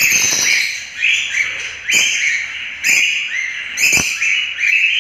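A flock of small pet parrots, budgerigars and lovebirds, chirping together: short repeated calls about once a second, overlapping one another.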